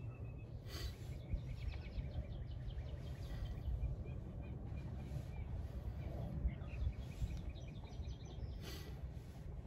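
Birds chirping in quick repeated trills over a low steady rumble of outdoor noise, with two short bursts of noise, one about a second in and one near the end.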